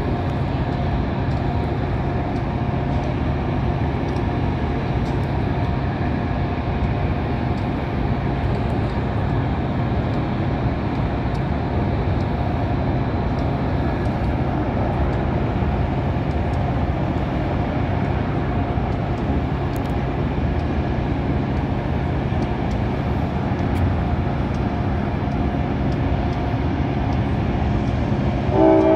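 Steady low rumble. A train horn starts blowing a chord just before the end.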